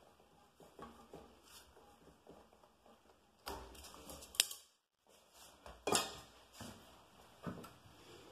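Utility knife blade scoring thin wooden shims against a tile floor, with faint scraping and clicking and a few sharp snaps as shim ends break off. The loudest snap comes about four and a half seconds in.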